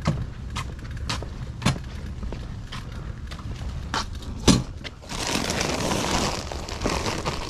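Footsteps in work boots on concrete, roughly two a second, while a loaded wheelbarrow is pushed; the sharpest step comes about four and a half seconds in. From about five seconds in, a steady rustling noise takes over.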